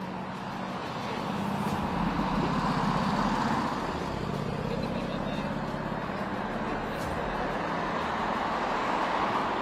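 Road traffic noise: a steady wash of tyre and engine noise, with a motor vehicle's engine hum swelling about two seconds in and fading by about seven seconds.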